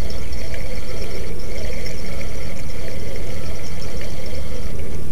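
Steady, loud wind rumble buffeting the microphone, with faint high chirps in the background.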